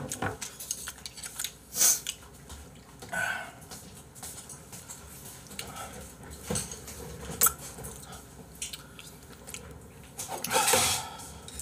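Scattered knocks, clicks and rustling of someone moving about and handling things at a table, with a sharp knock about two seconds in and a longer rustle near the end.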